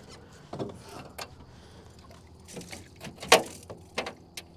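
Handling noise of a just-landed fish and lure: a few scattered clicks and knocks, the sharpest about three seconds in, with smaller ones near the end.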